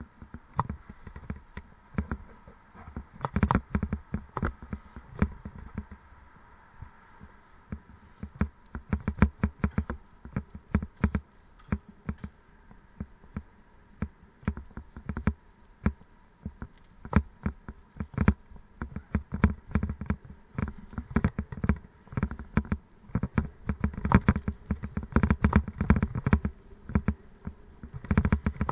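Raleigh Mustang Elite bicycle rattling over a rough, stony path: rapid, irregular clatter and knocks, heavier in bursts, over a faint steady whine.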